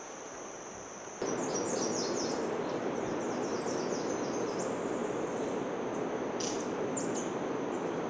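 A steady high insect trill gives way suddenly, about a second in, to a steady rushing noise like falling or running water in the rainforest. Short, stepping-down bird chirps sound over the rush for a few seconds.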